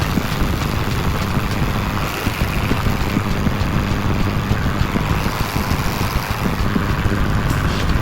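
Jeep Wrangler JK's common-rail diesel engine running steadily, with a rapid even low pulsing.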